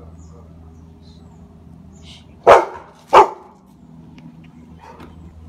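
Young dog barking twice in quick succession, two loud sharp barks under a second apart about two and a half seconds in, aimed at a cat up in a bush.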